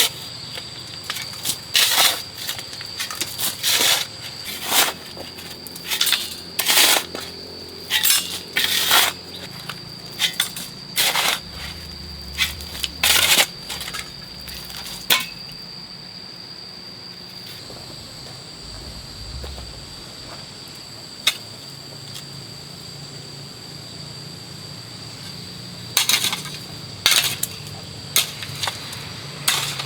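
A hand hoe chopping into soil: sharp strikes, often less than a second apart, with a pause of several seconds after the middle, broken by a single strike, before the chopping resumes near the end.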